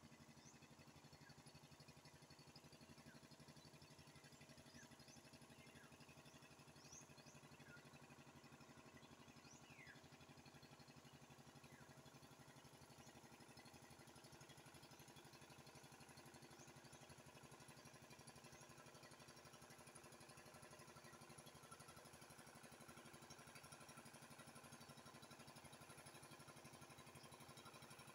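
Faint, steady drone of a small motor propelling a thatched-roof floating raft on the river, growing slightly louder in the second half, with a few short high chirps scattered through.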